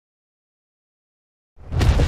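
Dead silence for about a second and a half, then near the end a loud, deep, rumbling sound swells in quickly: the start of a custom Acrocanthosaurus roar sound effect.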